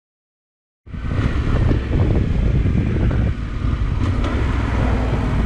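Motorcycle riding on the road, engine running under heavy wind noise buffeting the camera's microphone. It cuts in suddenly about a second in, after a moment of silence.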